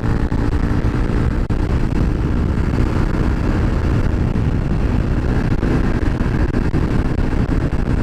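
Honda CBR300R's single-cylinder engine running at a steady pace while the motorcycle is ridden, mixed with a steady rumble of road and wind noise.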